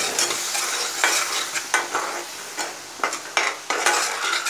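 Metal spatula stirring and scraping a wet onion-tomato masala around a pan, with repeated scrapes about twice a second over the sizzle of the masala cooking with a little water added.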